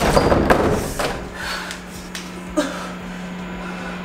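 Door handle rattled and a closed bathroom door banged on at the start. A steady low hum follows from about a second in.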